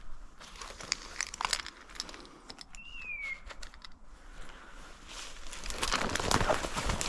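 Branches, twigs and dry leaves rustling and snapping as someone pushes through dense scrub, growing denser and louder about five seconds in. A brief falling whistle sounds about three seconds in.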